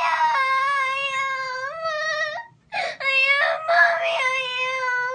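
A young girl crying hard: long, high held wails, broken by a short pause for breath about two and a half seconds in, then gasping sobs and another long wail.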